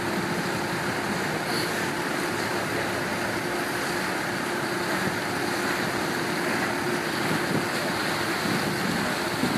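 Water taxi motorboat underway: a steady engine hum under the rush of water past the hull, with wind buffeting the microphone.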